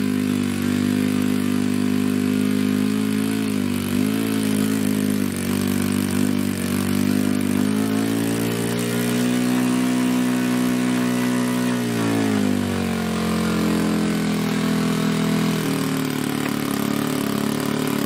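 A model aircraft engine runs steadily just after starting, warming up. From about eight seconds in it revs up and holds a higher speed, then is throttled back to a lower speed about four seconds later.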